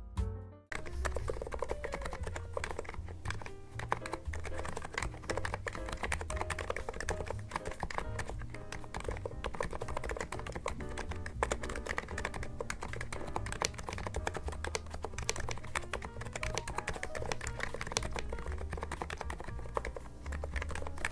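Continuous fast typing on a NIZ Plum87 electro-capacitive keyboard with a steel plate and PBT keycaps. It makes a dense run of soft key clicks and bottom-outs that starts about a second in.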